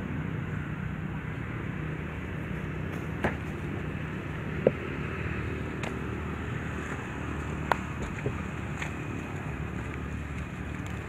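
Steady low outdoor background rumble with a few sharp clicks or snaps scattered through it, the loudest a little under halfway through.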